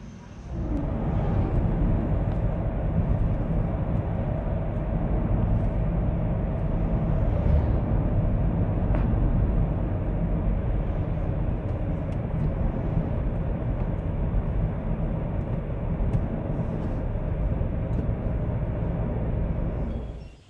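Steady engine and road rumble of a car driving, heard from inside the cabin. It starts abruptly under a second in and cuts off near the end.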